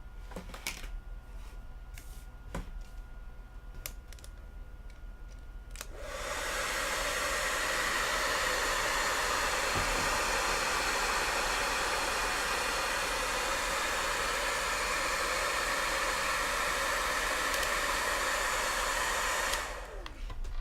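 Hair dryer running steadily on high heat, switching on about six seconds in and off near the end, after a few faint handling clicks. It is heating the edges of a phone's back panel to loosen the adhesive.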